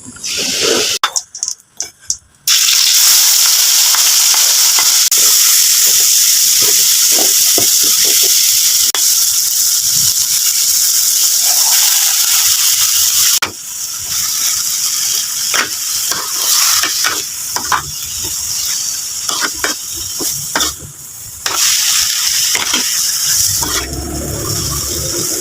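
Food frying in a pan, sizzling steadily with a loud hiss. After about half the time the sizzle is lighter and broken by spatula stirring, scraping and clinks against the pan.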